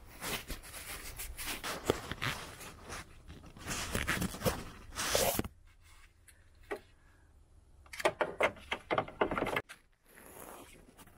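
Rustling and scraping with scattered clicks and knocks, as of things being handled in an engine bay. It goes quiet for a couple of seconds in the middle, then a quick run of sharp clicks and knocks comes near the end.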